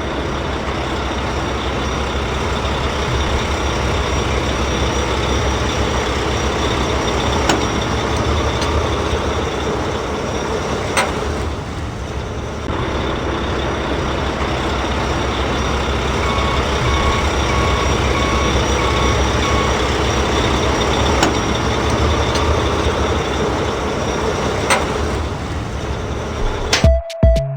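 A truck engine running steadily, with a short run of about five evenly spaced reversing beeps in the middle.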